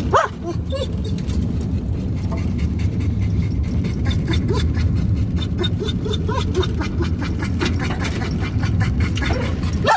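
Raindrops ticking on a vehicle's windshield and roof over the steady low rumble of the vehicle driving, with a dog giving a few short whines.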